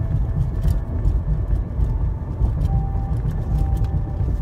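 Car cabin noise at highway speed: a steady low rumble of tyres and engine, with a few faint clicks.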